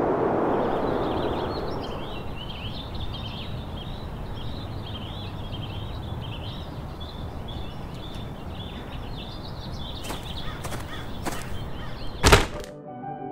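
Outdoor ambience: small birds chirping continuously over a low steady rumble, after a rushing noise that fades over the first two seconds. A few sharp clicks come near the end, then one loud click.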